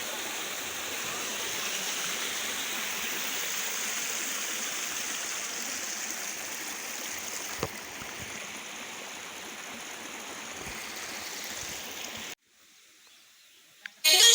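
Steady rushing of water from a waterfall. It cuts off suddenly about twelve seconds in, leaving near silence, and music starts right at the end.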